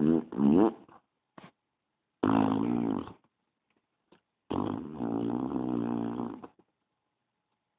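A baby's pitched, drawn-out gas noises, three of them. One is already under way and stops within the first second, one lasts about a second, and the last runs about two seconds.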